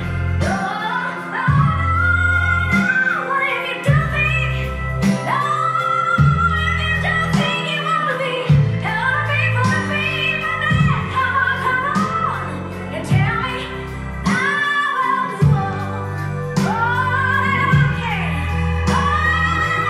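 A song with a woman singing over bass and a steady beat, played back through a V8-styled valve (tube) hi-fi amplifier and loudspeakers.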